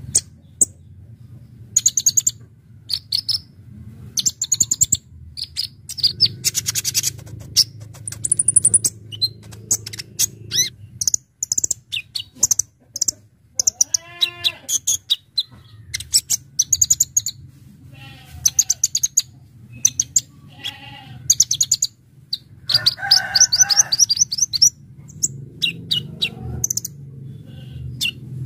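A kolibri ninja (konin) sunbird in full song: bursts of sharp, very high chirps and fast rattling trills, one after another with short gaps. A steady low hum runs underneath, and a lower, wavering call stands out about halfway through.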